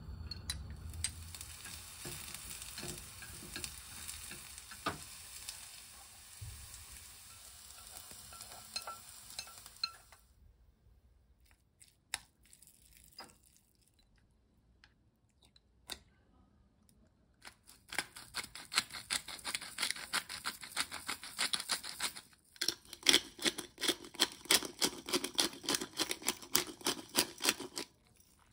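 Diced red onion sizzling in an oiled non-stick frying pan for about the first ten seconds. A quiet stretch with a few light clicks follows. Then chopsticks mix minced meat in a ceramic bowl, making rapid clicking against the bowl with a short pause partway through.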